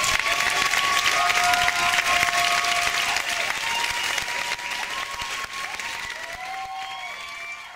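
Audience applauding, with a few long drawn-out calls over the clapping. The applause gradually fades away toward the end.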